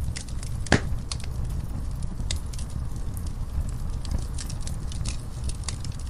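Wood fire burning logs: a steady low rumble with scattered sharp crackles, and one louder pop a little under a second in.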